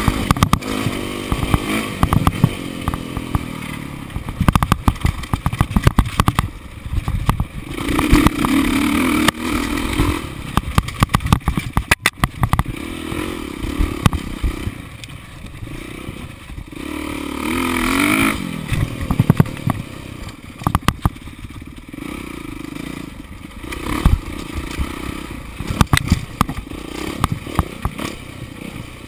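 Dirt bike engine revving up and down as it rides a rough dirt trail, with the pitch climbing hard about eight seconds in and again near eighteen seconds. Frequent sharp knocks and rattles come from the bike bouncing over the bumpy ground.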